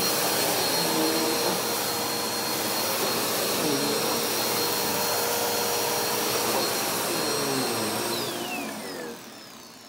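Upright vacuum cleaner running steadily with a high motor whine, then switched off about eight seconds in, the whine falling in pitch as the motor spins down.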